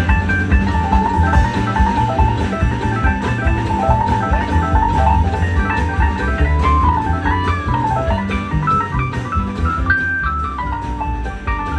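Live string band playing an instrumental break in a country song: a melodic lead line with bent notes over strummed guitar and a steady beat.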